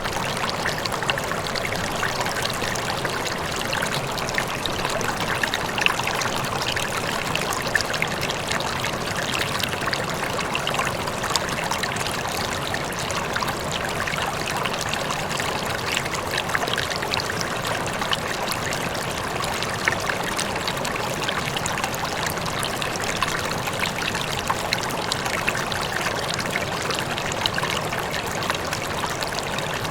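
Rippling water trickling steadily, with many small irregular splashes and gurgles.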